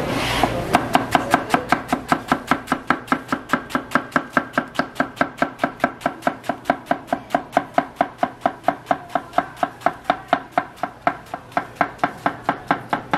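Chef's knife finely shredding a half head of cabbage on a wooden cutting board: a fast, even run of crisp cuts, each knocking on the board, about five a second, starting about half a second in.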